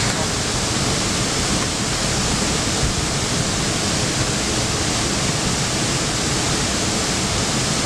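Chemerong waterfall, a tall multi-tier cascade swollen by rainy-season flow, giving a steady, unbroken rush of falling water.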